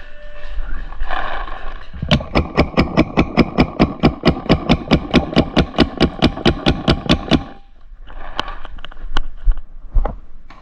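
Paintball marker firing a rapid string of shots, about five or six a second, for roughly five seconds, with scattered pops and rustling before and after.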